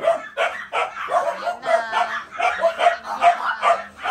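Small dogs barking and yipping excitedly, short sharp barks coming about three a second.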